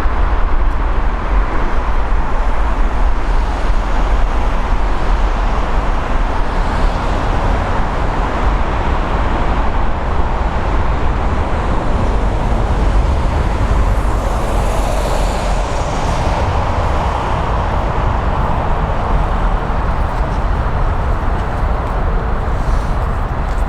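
Steady rumbling roar of jet aircraft engines, with a brief swell of higher hiss about two-thirds of the way through.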